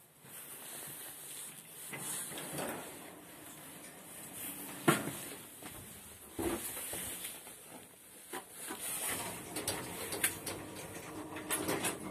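Lift doors of an OTIS passenger elevator sliding and clunking, with scattered clicks and knocks in the small metal car; the loudest is a sharp knock about five seconds in.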